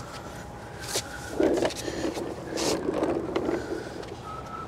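Rustling and scraping with a few sharp scuffs, as a person crawls under a semi truck.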